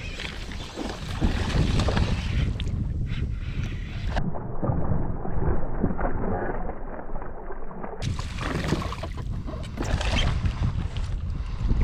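Water sloshing against a kayak hull while under way, with wind buffeting the microphone.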